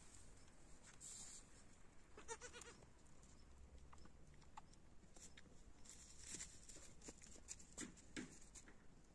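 A goat gives one short, faint bleat about two seconds in. The rest is near silence with scattered faint clicks.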